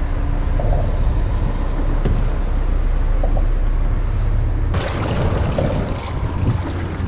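Wind rumbling over the microphone on a kayak out on choppy water, with the rush of water around the hull. About five seconds in the noise suddenly swells louder.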